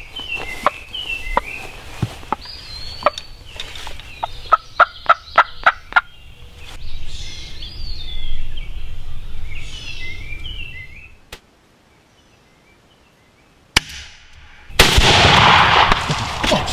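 Wild turkey gobbler gobbling, several rolling calls through the first ten seconds, with a quick run of about ten sharp evenly spaced notes in the middle. After a brief gap, a loud rushing noise fills the last couple of seconds.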